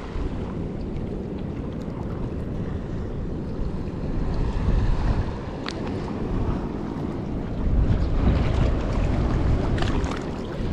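Wind buffeting the microphone over sea water lapping and sloshing. The rumble swells louder about four seconds in and again about eight seconds in, with a single sharp click near the middle.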